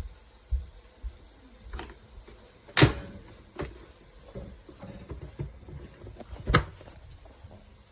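Scattered clicks and knocks around a Nespresso Vertuo Pop+ coffee machine just after its brew button is tapped, two of them louder, about three seconds in and near the end.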